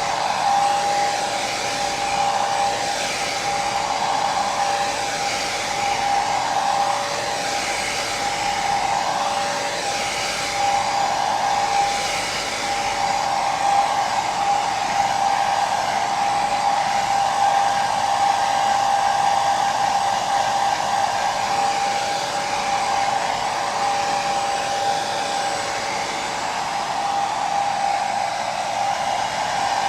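Hair dryer running continuously: a steady blowing rush with a constant motor whine.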